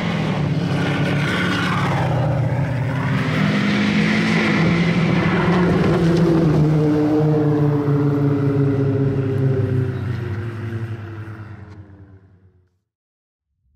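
Ripsaw EV2 tracked vehicle's Duramax turbodiesel V8 running hard as it drives, its pitch rising and falling, then fading out near the end.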